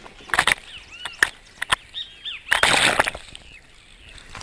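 Water splashing and sloshing against the hull of an International Folkboat (IF-boat) under sail, heard from close to the waterline: two louder splashes, about half a second in and about two and a half seconds in, with sharp clicks and a few short chirps between them.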